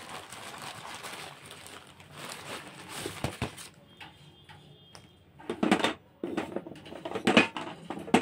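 Hollow clay rolls being handled and set down in a steel plate: rustling and a few sharp knocks and clinks, the loudest a little past halfway and again near the end.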